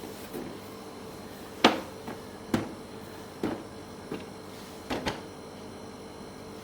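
Irregular knocks and clicks from objects being handled, about six in under four seconds, the first about a second and a half in being the loudest, over a faint steady hum.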